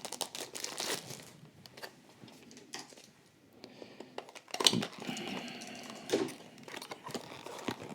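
Scattered light clicks and rustling of a small diecast model car's cardboard box and plastic packaging being handled and opened, with a couple of louder rustles partway through.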